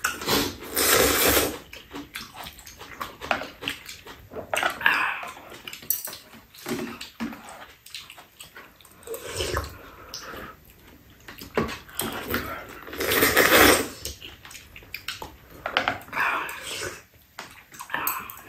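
Noodles in broth being slurped from bowls: wet sucking slurps, the loudest about a second in and again around 13 seconds, with smaller slurps between.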